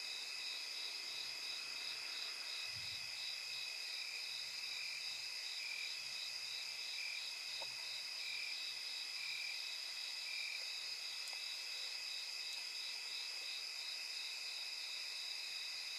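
Night insects chirring in a steady chorus at several high pitches, one of them pulsing about three times a second and another swelling about once a second.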